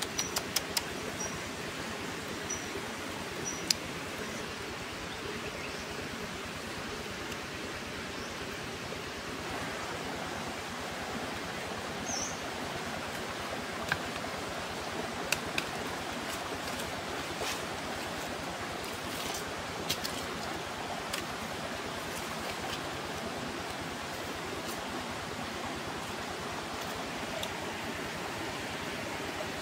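Wood cooking fire crackling, with scattered sharp pops and clicks over a steady hiss. A few short high chirps sound in the first few seconds.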